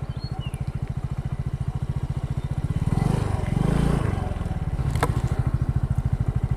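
Motorcycle engine idling at a stop, a steady fast train of low pulses, swelling briefly about three seconds in; a single sharp click near five seconds.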